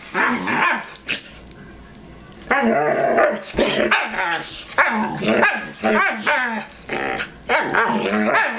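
Two dogs, one a husky, play-fighting: a run of growls and barks with mouths open, with a short lull about a second in before the noisy back-and-forth resumes and keeps going.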